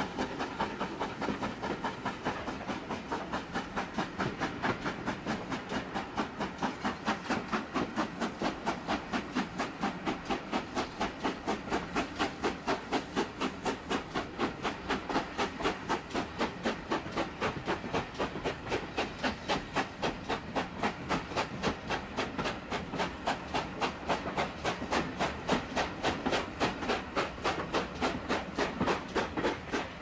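Steam locomotive chuffing at a steady, even beat, each exhaust beat a short hiss, a little over two beats a second.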